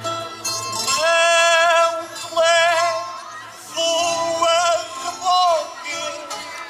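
A man singing an improvised verse of cantiga ao desafio in long, wavering held notes, in several phrases with short breaths between, over plucked guitar accompaniment.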